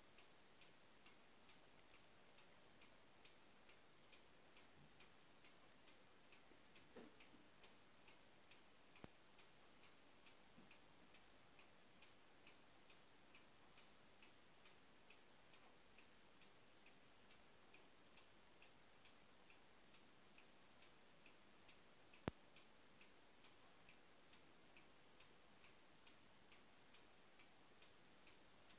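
Faint, steady ticking of a clock, about two ticks a second, with a single sharp click about three-quarters of the way through.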